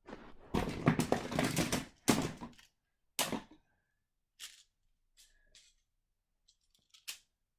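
Plastic magnetic building tiles being handled: a couple of seconds of dense clattering, then one sharp knock and a few fainter separate clicks as pieces come apart and snap together.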